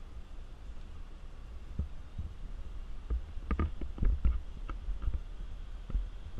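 Jeep Wrangler off-roading on a rough trail: a steady low rumble with a run of sharp knocks and clunks, bunched together in the middle and loudest about four seconds in.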